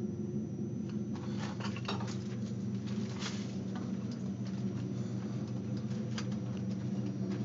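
A steady low hum with scattered light clicks and scuffs, as someone moves about in a cramped passage.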